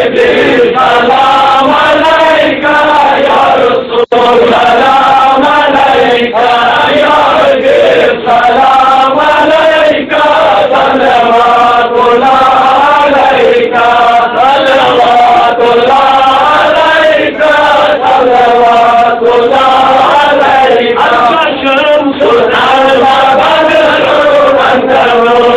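A group of men chanting an Arabic devotional salawat in praise of the Prophet, singing one melody together in steady, continuous phrases.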